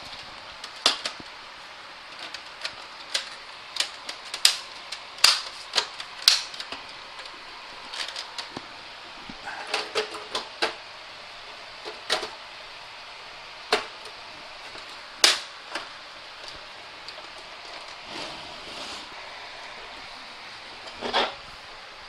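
Sharp clicks and knocks, irregularly spaced, of a small-form-factor PC case being handled as its sheet-metal cover is slid on and latched shut, over a steady faint hiss.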